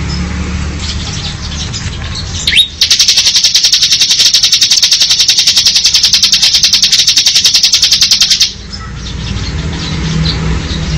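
Bar-winged prinia (ciblek) singing its 'ngebren' drilling trill: a loud, rapid, even run of sharp high notes lasting about six seconds, starting a couple of seconds in. Softer chirps come before and after it.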